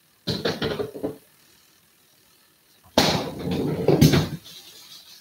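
Knocks and clatter of things being handled in a kitchen: a short run of knocks near the start, then a louder clatter with two sharp hits about three seconds in.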